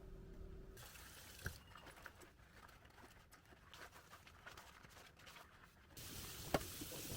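Quiet room tone with a few faint, scattered clicks and taps; a low steady hum stops about a second in.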